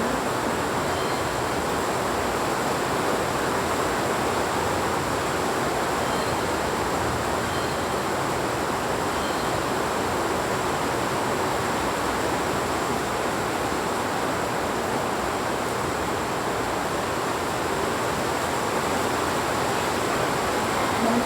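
Heavy rain falling steadily, an even unbroken hiss, with a few faint short high chirps in the first half.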